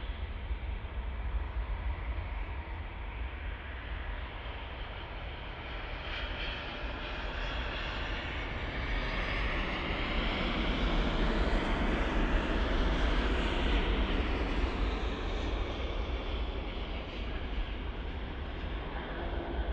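Airbus A350-900 landing, its Rolls-Royce Trent XWB turbofans heard as a steady jet rush that swells as the airliner passes close, peaks about halfway through with a slowly falling pitch, then eases off as it rolls out on the runway. A steady low rumble lies underneath throughout.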